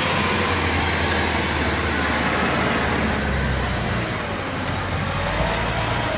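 Kubota DC105X combine harvester running steadily: a constant engine drone under a broad mechanical hiss.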